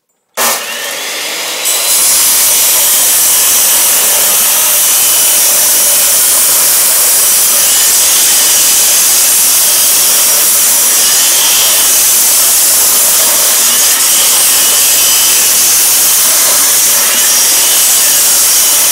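Chop saw cutting through an AC motor armature: the saw motor starts up, and about two seconds in the blade bites into the armature, giving a loud, steady cutting noise with a strong hiss.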